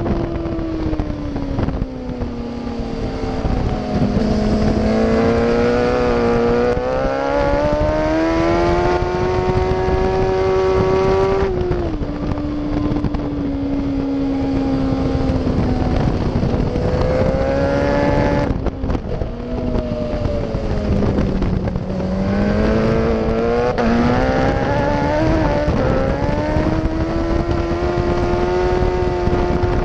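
Yamaha FZ1's inline-four engine running hard at speed. Its pitch falls at first, climbs for several seconds, drops suddenly at an upshift about a third of the way in, sinks to its lowest a little past two-thirds as the bike slows, then climbs again. Wind rushes over the microphone.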